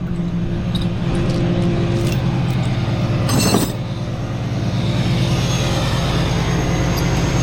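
Tow truck engine running steadily, with a short clank or rattle about three and a half seconds in and a hiss building near the end.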